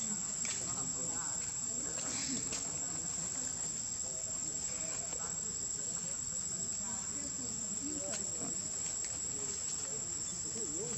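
Steady high-pitched drone of insects.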